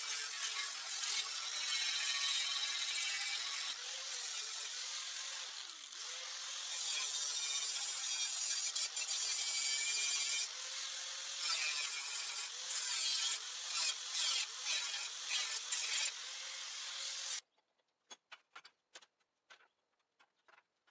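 Hand-held power tool grinding or cutting steel, a dense hiss over a wavering motor hum. It comes in short, choppy stretches toward the end and stops abruptly about three-quarters of the way in, followed by a few faint clicks.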